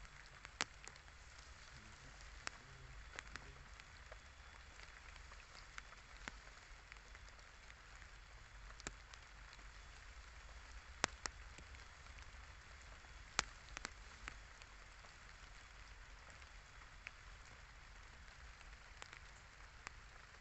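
Light drizzle falling: a faint, steady patter of rain with scattered sharp taps of single drops.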